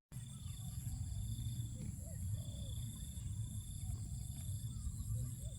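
Rice-field ambience: insects trilling steadily at a high pitch over a low rumble, with short low animal calls scattered throughout.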